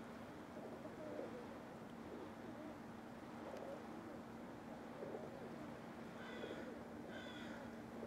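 Rock pigeons cooing over and over, with a steady low hum underneath. Near the end come two short, higher calls from another bird.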